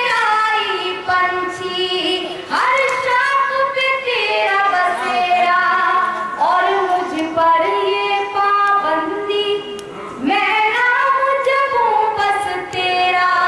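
A woman singing an Urdu ghazal in tarannum style. The melody moves in long held notes that slide between pitches, in phrases with brief pauses for breath between them.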